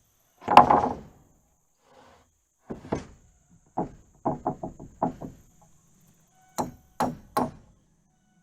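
Hammer driving nails into wooden porch floor boards. A loud first blow is followed by scattered strikes, a quick run of about half a dozen, and three more blows near the end.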